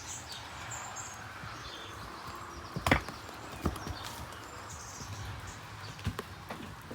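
Steady rain falling, with a few sharp knocks over it, the loudest about three seconds in.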